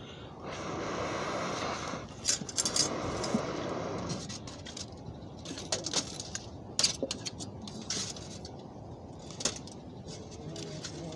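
Breath blown through a metal fire-blowing pipe into a campfire: a steady rush of air, strongest in two long blows over the first four seconds. Sharp clicks and crackles are scattered through the rest.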